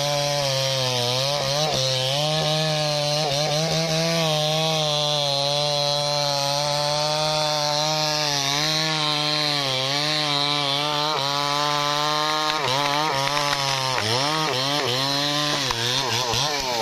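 Chainsaw running at high revs while cutting into a thick tree trunk with a blunt chain. The engine pitch sags and recovers under the load, wavering more in the last few seconds.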